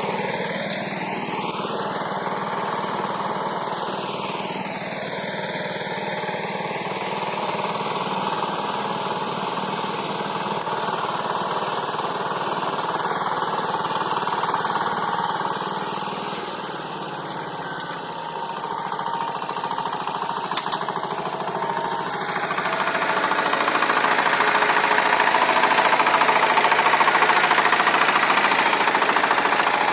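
A 12-horsepower walk-behind tractor's engine running steadily under load as its rotary tiller works the soil in second gear. It gets louder about two-thirds of the way through.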